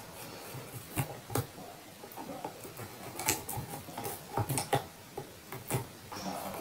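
Scissors snipping and slicing through packing tape on a cardboard box: a run of irregular short, sharp snips with light crinkling of tape and cardboard between them.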